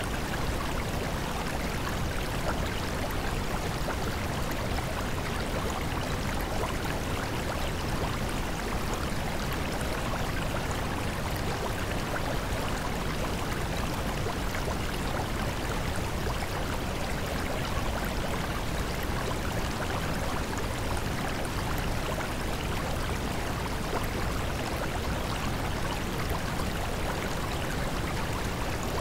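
Steady, unchanging rushing noise of running water, with no audible voice or music.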